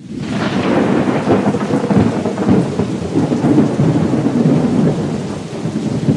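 Thunderstorm: steady heavy rain with low rolling thunder, fading in quickly at the start.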